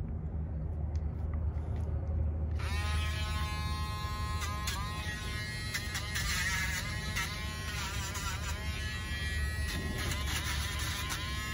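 Dremel rotary nail grinder switching on about two and a half seconds in and running with a steady high whine while filing a dog's nails, its pitch dipping and recovering several times as it is pressed against the nail.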